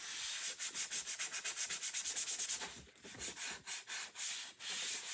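Felt dry-erase eraser scrubbing marker off a checklist card, a dry rubbing hiss in quick back-and-forth strokes that turn into slower, longer strokes after about three seconds.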